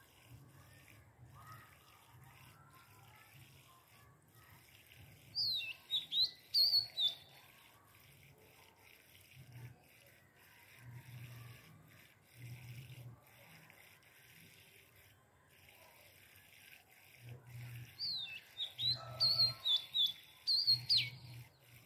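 A bird calling in two bursts of quick, sharp chirps and whistles that swoop up and down, about five seconds in and again near the end.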